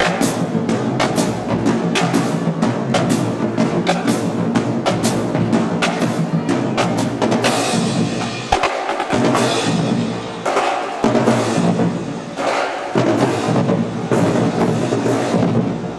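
Marching band drumline playing a cadence: rapid snare drum strokes over bass drums, with cymbal crashes coming in about halfway through.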